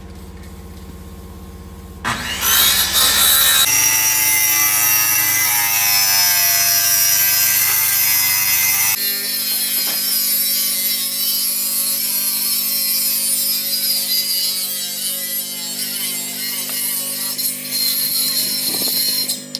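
A corded angle grinder cutting and grinding the steel floor plate of a truck's cargo bed, a loud harsh whine that wavers in pitch as the disc bites. For the first two seconds there is only a lower, steady hum.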